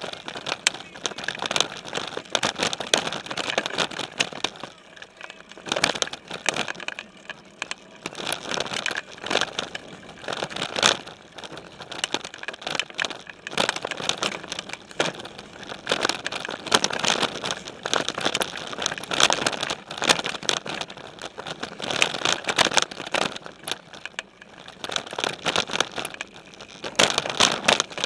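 Specialized Stumpjumper mountain bike rolling over rough dirt singletrack, picked up through a camera mounted on its frame: a constant jumble of rattles, clicks and knocks as the tyres hit rocks and roots, with a few brief quieter stretches.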